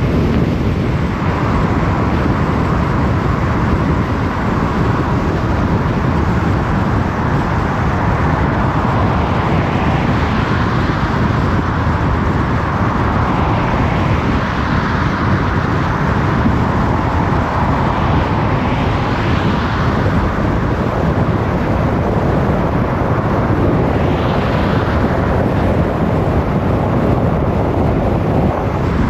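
Steady road noise of a car driving: low tyre rumble and wind hiss, with a few brief swells of higher hiss.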